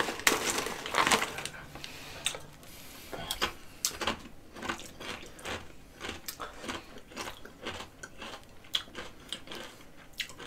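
Ridge-cut potato crisps being crunched and chewed, a run of short irregular crunches, with the crisp packet rustling near the start.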